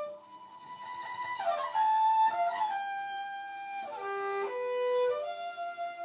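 Instrumental music: a violin playing a slow melody of held notes, sliding between pitches about a second and a half in and again around four seconds.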